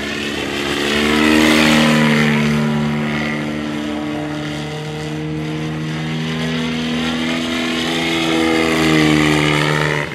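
Valach VM120B2 engine of a 40% scale radio-controlled Fokker Eindecker, turning a 30x12 propeller and running steadily in flight. It grows louder as the plane passes about a second and a half in and again near nine seconds, the pitch shifting as it goes by.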